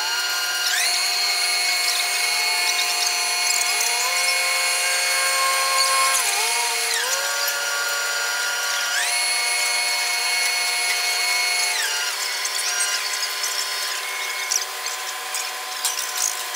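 Hoist winch of a segment launching gantry lifting a precast concrete box-girder segment: a steady high machine whine that steps up in pitch about a second in, drops back near four seconds, steps up again around nine seconds and drops near twelve.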